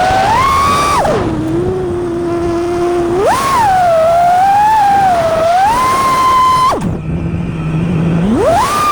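FPV quadcopter's brushless motors (T-Hobby 2208 1750kv on 6S) whining, the pitch rising and falling with throttle. Twice the throttle is chopped and the whine drops to a low hum, about a second in for two seconds and again near seven seconds, before it punches back up to a high whine.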